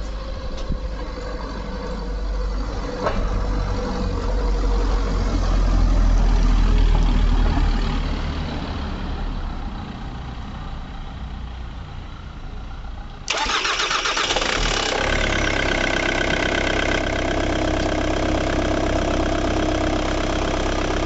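A low rumble for about the first thirteen seconds. Then the Ford Mondeo Mk3's starter motor cranks briefly and the engine catches and settles into a steady idle: it starts now that the burnt fuse has been replaced.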